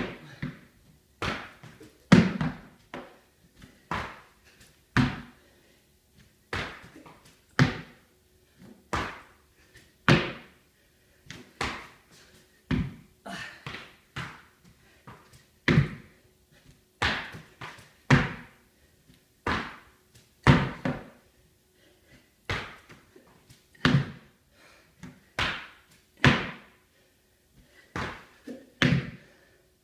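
Workout reps with gym equipment: a heavy thud with a short clanking ring about every second and a quarter, some landing as a quick double hit.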